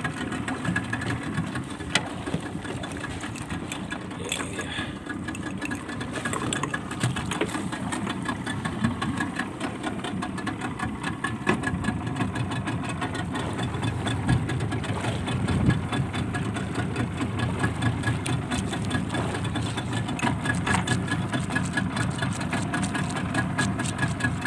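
Small fishing boat's engine running steadily, with a fast even rattle of firing strokes.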